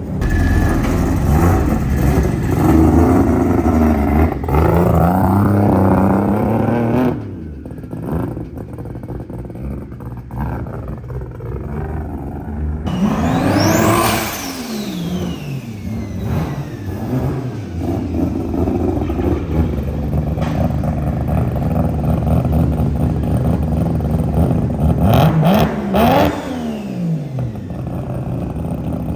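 Mazda RX-7 rotary engine revved hard while stationary. It is held at high revs for the first several seconds, drops back to a rough idle, then is blipped sharply a few times, the pitch shooting up and falling away each time. Loud.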